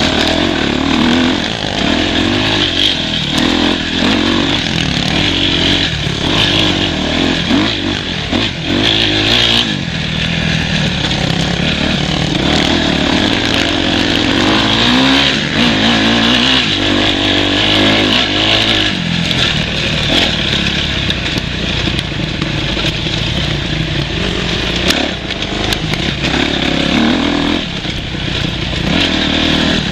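Dirt bike engine heard from on board while riding an off-road trail, its revs rising and falling continuously as the throttle is worked.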